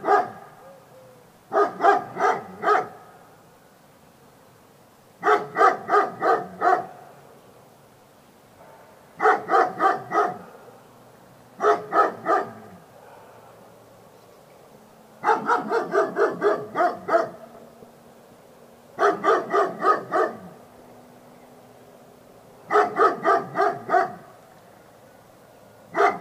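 A dog barking in quick runs of four to seven barks, with a run every three to four seconds.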